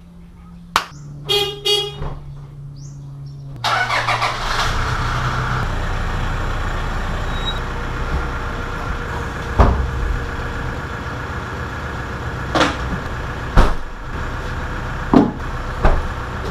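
Motorcycle riding through traffic: a steady engine and wind rumble starts a few seconds in and runs on, with a few sharp knocks. A short horn-like toot sounds before the riding noise begins.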